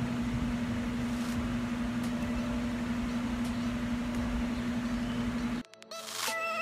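Steady room hum with a constant low tone and an even hiss. Near the end it cuts off abruptly and background music begins.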